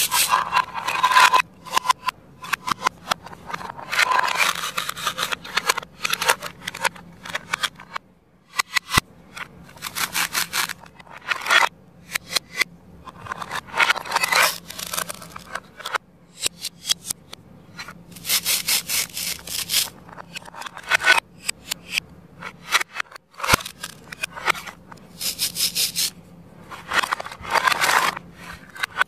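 Plastic toy knife sawing and scraping through velcro-joined plastic toy fruit on a plastic cutting board. It comes in repeated clusters of short rasping strokes with brief pauses, as the pieces are worked apart and handled.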